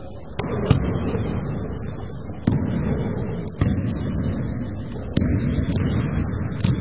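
Sudden thuds of a basketball hitting the rim and the hardwood court, about six times, each leaving a loud booming echo. A few high sneaker squeaks come in between.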